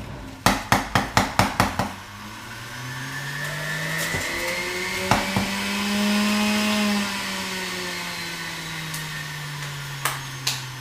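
Electric juicer motor running as vegetables and fruit are fed through, with a quick run of about seven sharp knocks at the start. The motor's pitch slowly rises to a peak about six seconds in, then sinks, with a few more knocks near the end.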